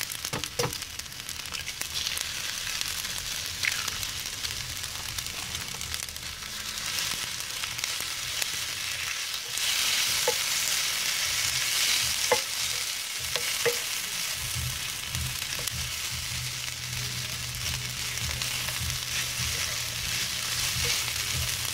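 Pan of sweet peppers, black beans, rice, quinoa and spinach sizzling steadily as it is stirred, with occasional clicks of a utensil against the pan. The sizzle swells for a couple of seconds near the middle.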